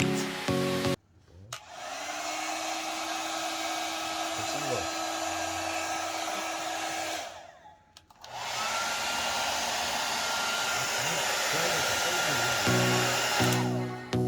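Pet hair dryer with a built-in comb running: a steady blowing noise with a motor whine that spins up about two seconds in. It shuts off just before the middle, then starts again and runs until music comes back near the end.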